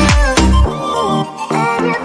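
Background dance music with a heavy kick-drum beat and a melodic synth line; the bass and drums drop out for about a second in the middle, then come back.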